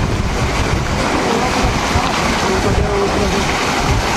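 Water gushing steadily into the ballast tank of a water-balance funicular car, filling it to make the car heavy enough to descend. Wind buffets the microphone.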